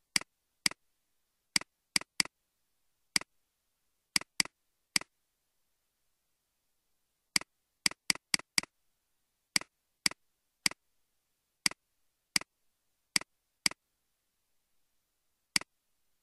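Computer mouse button clicking about twenty times at irregular intervals, each click a sharp press followed by a softer release tick. Some come in quick pairs, with a fast run of four about eight seconds in, and there is dead silence between them.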